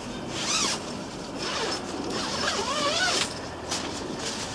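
Tent door zipper being pulled open in about four short runs, each a rasp with a pitch that bends up and down as it goes.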